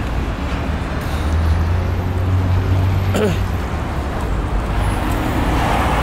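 Road traffic on a city street: a steady low rumble of cars and vans driving past. The engine hum grows louder from about one second in and eases off after about three and a half seconds as a vehicle passes close.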